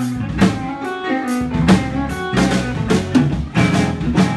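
Country band playing an instrumental passage: a drum kit keeps a steady beat under guitar and a stepping bass line.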